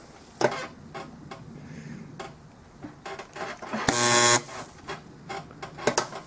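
Bronze pit welder, a resistance spot welder, buzzing loudly for about half a second about four seconds in as its copper tip fuses a fluxed silicon bronze pellet into a pit. Light clicks and taps come before and after.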